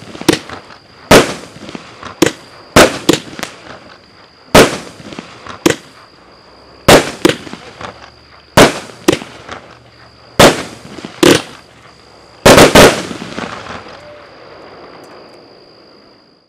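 A 16-shot, 200-gram consumer firework cake (Flashing Fireworks' Grapes of Wrath) firing its last shots as a run of sharp bangs at uneven spacing, about one a second. Two loud bangs close together near the end close the cake, and their echo rumbles away over the last few seconds.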